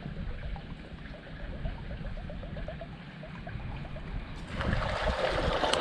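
Wind rumbling on the microphone. About four and a half seconds in, a steady rushing hiss starts suddenly: water pouring from a drain pipe into a concrete canal.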